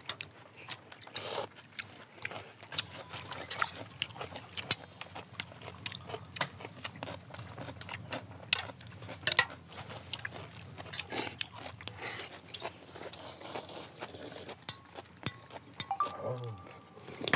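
People eating noodle soup: slurping and chewing, with many sharp clicks of chopsticks and spoons against stainless-steel bowls.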